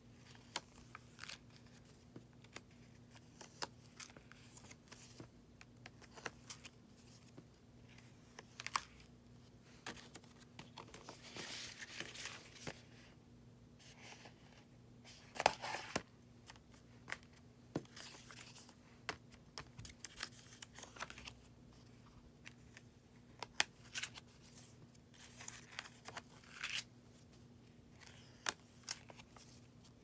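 Pages of a small handmade junk journal made from old calendar paper being turned and handled: scattered paper rustling and crinkling with light taps and clicks, loudest about halfway through.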